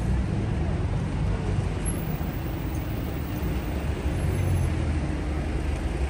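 Steady city street noise of road traffic, a continuous low rumble of passing vehicles with no single sound standing out.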